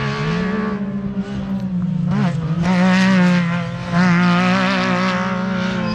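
Off-road race vehicle's engine running hard as it passes, its pitch wavering up and down, loudest about three and four seconds in.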